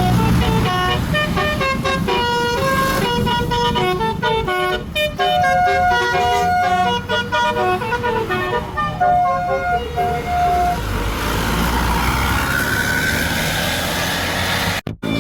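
Tour bus 'telolet' multi-tone air horn playing a quick tune of short stepped notes for about ten seconds. It is followed by a low rumble with a rising whine.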